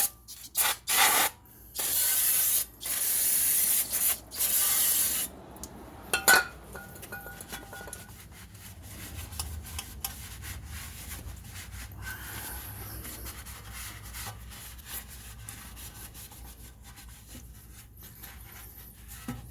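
Aerosol brake cleaner spraying: a few short bursts, then three long hissing blasts over the first five seconds. A sharp click follows, then quieter, irregular rubbing and scrubbing of the brake parts.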